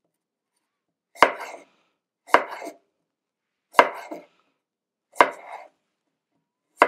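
Santoku kitchen knife, freshly sharpened, chopping down through an apple onto a cutting board five times, about one stroke every second and a half. Each stroke is a sharp knock with a short crunch.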